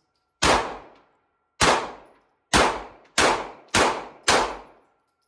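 Gunshots at a shooting range: six sharp shots in about four seconds, each ringing out briefly. The first three are about a second apart and the last three come quicker, about half a second apart.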